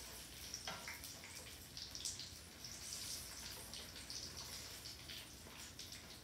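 Conch fritters frying in hot oil in a wok: a faint steady sizzle with scattered small crackles and pops.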